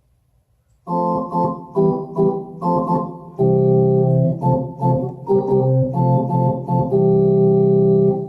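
Roland VR-09 keyboard playing an organ tone, a run of short chords followed by longer held chords. The playing starts about a second in.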